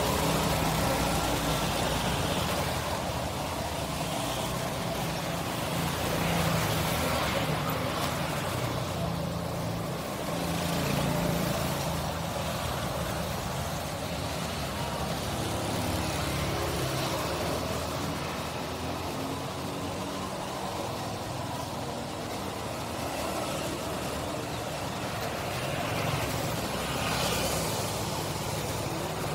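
Busy street-market ambience: a steady background of engine and traffic noise with faint voices mixed in.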